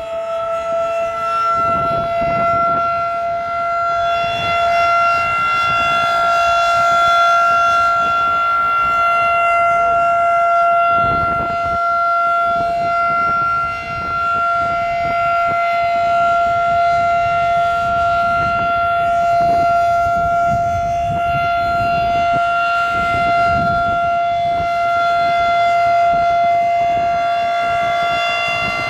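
Outdoor tornado warning siren sounding a loud, steady held tone at full pitch, with gentle swells in loudness.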